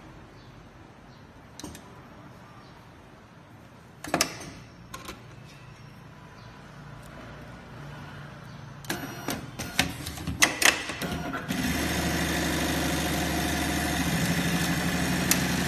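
Chaocheng automatic bra sewing machine: a few sharp clicks and knocks as the bra is set in the machine's clamp, then about two-thirds of the way through the machine starts and runs steadily, sewing the piece by itself.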